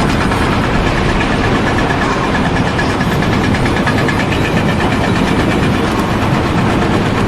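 A loud engine running steadily, with a fast regular rattle.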